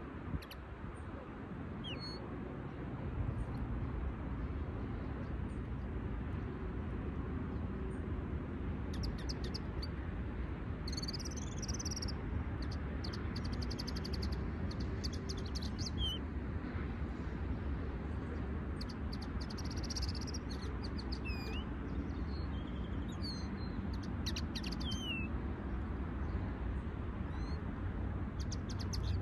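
Caged songbirds, a linnet hybrid among them, singing in scattered bursts of short high chirps and rapid twittering phrases, busiest in the middle, over a steady low rumble.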